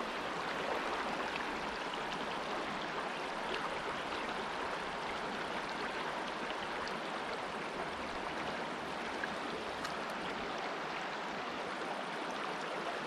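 Small high-mountain river running steadily, an even rush of flowing water.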